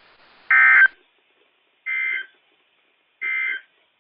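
NOAA Weather Radio SAME end-of-message data bursts: three short, buzzy digital tone bursts about 1.3 s apart, the first one louder, marking the end of the alert broadcast. A faint radio hiss stops after the first burst.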